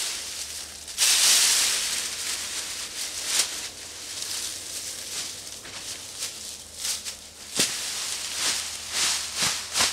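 Dry leaves rustling and crackling as they are raked into a black plastic lawn bag. A loud rustling sweep about a second in, then a run of sharp crackles and snaps as leaves and the bag are handled.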